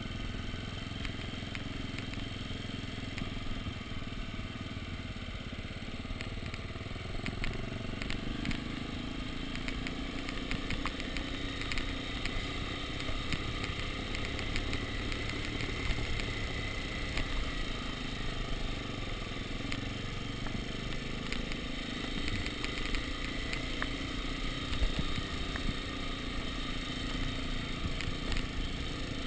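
Dirt bike engine running steadily while the bike rolls over a cobblestone road, with a constant rattle and clatter of small knocks from the bike jolting on the stones.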